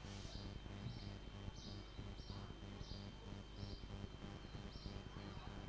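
Faint high bird chirps repeating about every half second, over a steady low hum.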